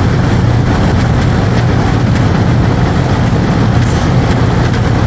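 Outdoor condensing unit of an R-22 central air conditioner running steadily: the fan's air rush over a low compressor hum, while the system is being charged with refrigerant.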